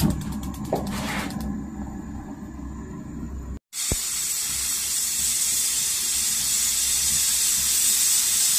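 Gas stove burner burning with a low rumble. After a short break, a steady high hiss of steam escaping from the pressure cooker's valve as it comes up to pressure with black corn inside.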